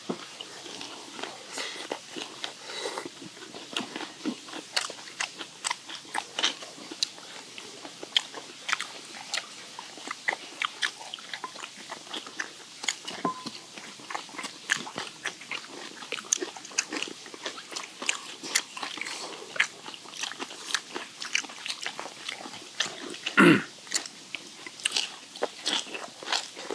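Close-miked chewing and crunching of steamed skate, its crunchy cartilage, and crisp bean sprouts and minari, with many small wet clicks and smacks of mouths eating. A brief hum of a voice comes in about three seconds before the end.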